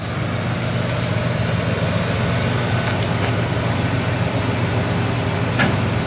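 1968 Ford Thunderbird's 429 cubic-inch V8 idling steadily and quietly, with a brief click near the end.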